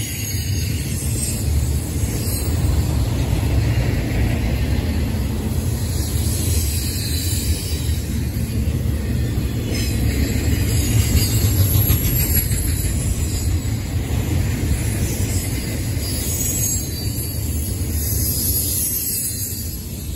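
Intermodal freight cars (trailers on flatcars and double-stack containers) rolling past at track speed: a steady low rumble of wheels on rail, with faint high wheel squeals now and then.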